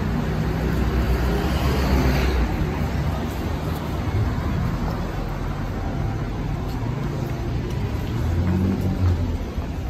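Busy street traffic: a bus engine rumbles close by for the first two seconds or so as it passes, then a steady traffic rumble goes on, with another engine swelling briefly near the end.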